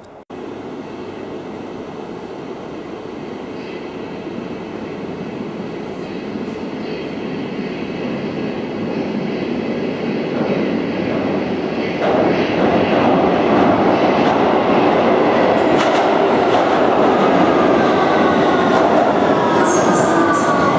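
Victoria line 2009 Stock tube train approaching through the tunnel and running into the platform: a rumble that grows steadily louder, jumps up about twelve seconds in, and ends with a falling whine as the train slows alongside the platform.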